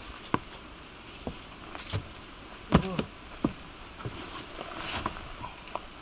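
Scattered knocks and footsteps on a wooden deck and the creak of a folding camp chair as someone sits down, the loudest a knock with a short squeak about halfway through; small clicks and rustles of a foil food packet being handled.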